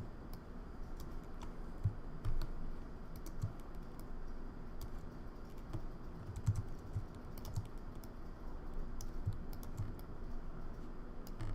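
Irregular light clicks of a computer mouse and keyboard as the healing brush is worked, Option-key sampling and clicking, with a few soft low thumps.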